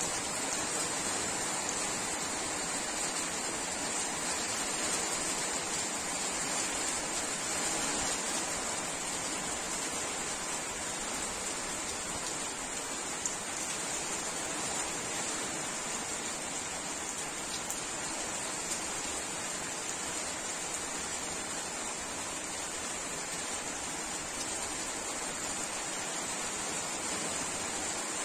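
Steady rain falling, an even unbroken hiss, with a couple of faint ticks in the middle.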